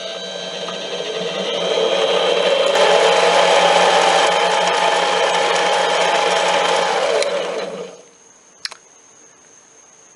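Metal lathe parting off the top's brass workpiece: a steady motor hum under a loud squealing cut from the parting tool, which grows louder about two seconds in and stops about eight seconds in. A single short click follows.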